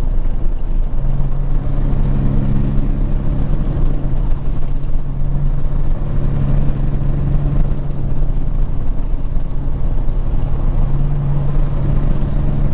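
Peterbilt 379 semi truck cruising at steady speed: a constant low engine drone with road and tyre noise.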